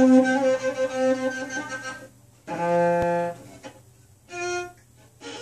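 Cello bowed in separate notes: a long held note that fades out about two seconds in, then a lower note lasting under a second, and a brief higher note near the end. A light click sounds about three seconds in.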